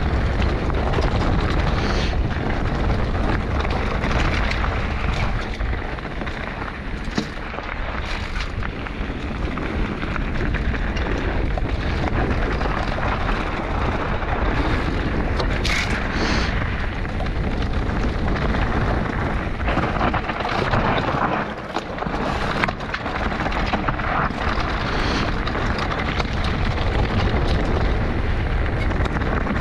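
Enduro mountain bike descending a dirt and stone singletrack, heard from a camera on the bike or rider: a steady rough rumble and rattle from the tyres and bike over the ground, broken by a handful of sharp knocks.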